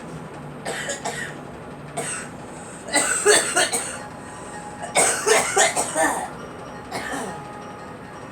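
A girl coughing in bouts: single coughs about one and two seconds in, then two fits of several rapid coughs around three and five seconds in, and a last cough near the end.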